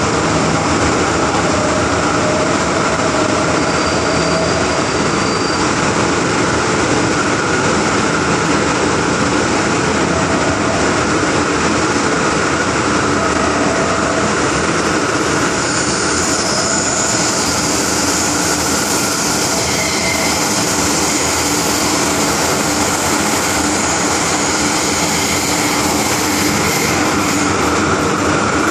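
Inside the car of an MTR M-Train (Metro-Cammell EMU) running through a tunnel: a steady, loud rumble and rush of wheels on rail and air. The hiss grows brighter a little over halfway through.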